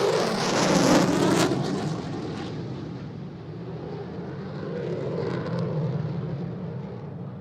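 Jet airplane passing by: a loud rushing jet noise with a high hiss peaks about a second in. It then fades to a steady low rumble that swells a little again around five seconds in.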